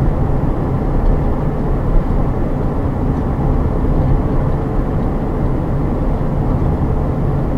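Steady engine and road noise of a motorhome driving along a highway, heard from inside the cab.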